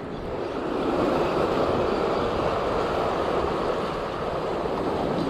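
Sea surf washing over shoreline rocks: a steady rushing that swells over the first second and then holds.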